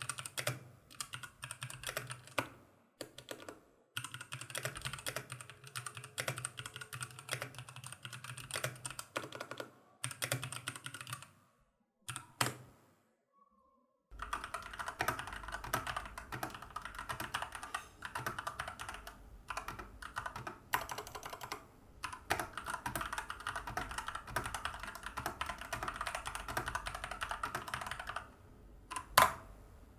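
Fast, continuous typing on a Keychron K12 mechanical keyboard with Gateron Brown tactile switches. After a brief pause about halfway through, the typing switches to a Keychron C2 with Gateron Red linear switches, which gives a denser, different-toned clatter.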